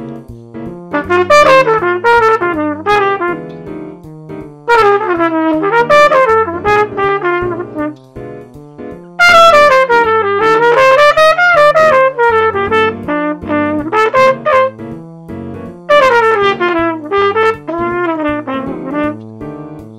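Trumpet improvising a swing blues in F in phrases separated by short rests, over a synthesized jazz accompaniment whose bass steps on every beat.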